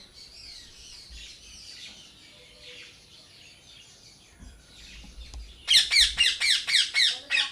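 Soft chirping of background birds, then about two-thirds of the way in a parrot calls loudly: a rapid run of about nine falling notes in under two seconds.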